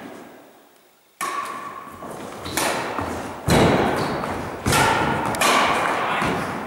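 Badminton rally: sharp racket strikes on the shuttlecock and thuds of footwork on the wooden gym floor, echoing in the hall. The impacts come about once a second, starting about a second in, and the loudest falls about halfway through.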